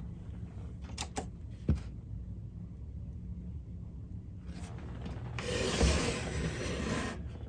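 Sony TC-K75 cassette deck under test after power-up: a few sharp clicks about a second in, over a steady low mains hum. A rustle of handling follows near the end.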